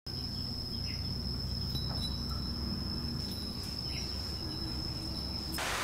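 An insect's steady high-pitched drone over a low background rumble, stopping abruptly near the end.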